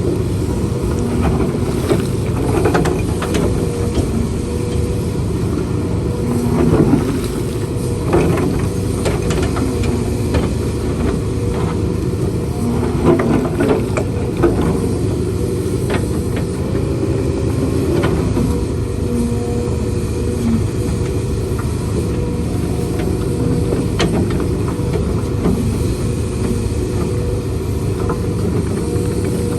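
Diesel engine of heavy earth-moving machinery running steadily, with scattered short knocks and clanks from the work.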